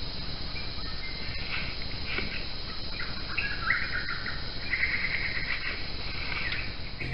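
Tropical forest ambience: a steady high insect drone, with birds chirping on and off, most busily in the middle and later part.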